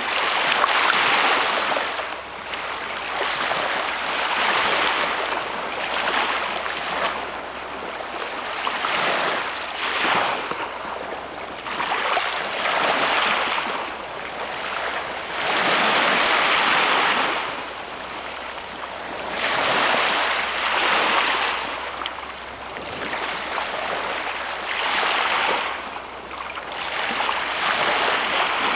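Small waves breaking and washing up on a sandy beach, the wash swelling and fading every few seconds.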